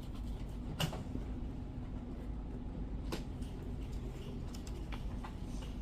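Steady low background hum with a faint steady tone, broken by a few brief faint clicks about a second in and about three seconds in.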